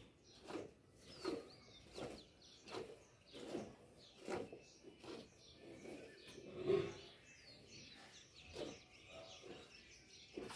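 Hand milking a cow into a steel bucket: streams of milk squirting into the milk already in the pail, a rhythmic squirt about every 0.7 seconds as the hands alternate. One louder short sound comes about seven seconds in, and birds chirp faintly behind.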